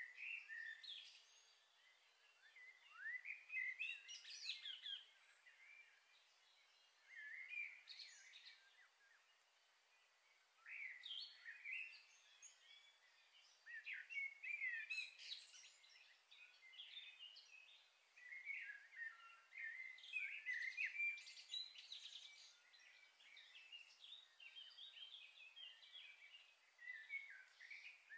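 Small birds chirping and twittering, faint, in short bouts every few seconds.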